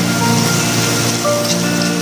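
Background music of slow held notes, over an even hiss of garlic and chillies sizzling in oil in a wok as they are stirred.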